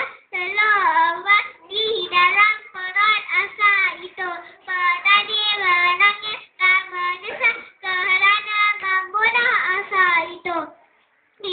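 A young girl singing solo into a microphone, with a brief pause near the end.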